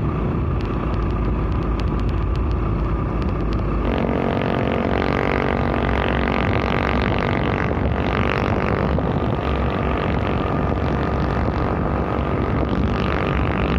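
Traffic noise from close behind a loaded Hino truck on the road: wind and road rush at first. About four seconds in, the sound changes abruptly to a steady droning engine note with a clear pitch.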